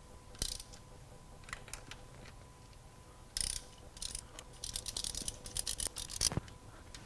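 Hand ratchet wrench clicking in short bursts as it is worked back and forth to drive in a 10 mm bolt. A fast run of clicks comes about two thirds of the way in.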